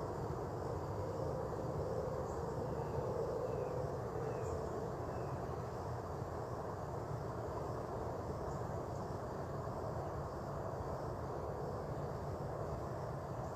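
Steady low outdoor rumble, like distant engine noise, with a few faint bird chirps in the first few seconds.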